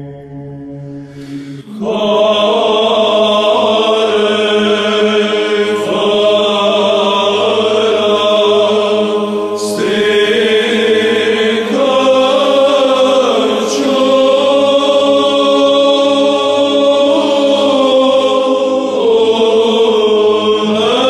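Background music of sustained, chant-like voices over a steady drone. It grows louder about two seconds in.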